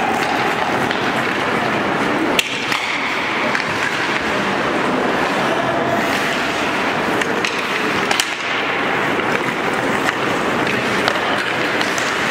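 Ice hockey play: skates scraping on the ice over a steady background din, with sharp clacks of sticks and puck, the loudest about two seconds in and another about eight seconds in.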